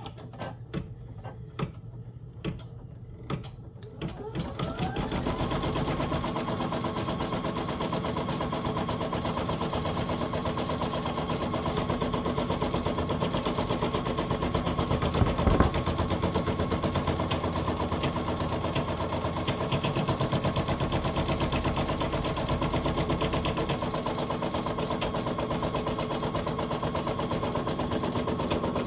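Brother NS1250E embroidery machine stitching the placement outline and zipper tack-down of an in-the-hoop zippered bag on hooped cutaway stabilizer. A few separate clicks as it starts, then a rising whine about four seconds in that settles into a steady, rapid needle chatter over a motor hum. There is one sharp knock about halfway through.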